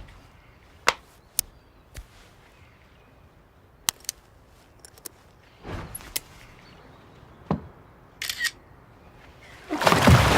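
Sharp plastic clicks and snaps of protective cases being fitted onto a phone and AirPods, scattered every second or so, with a loud rush of noise starting near the end.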